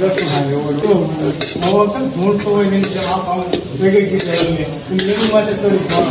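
Shredded cabbage sizzling in a large iron kadai while a long wooden paddle stirs it, giving repeated scraping strokes against the pan. A wavering pitched sound runs underneath the whole time.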